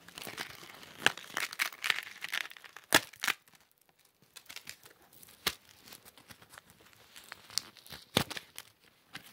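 Paper tape being peeled and torn off a necklace, with crinkling and sharp clicks of handling. It is busiest in the first few seconds, then thins to scattered crackles and taps.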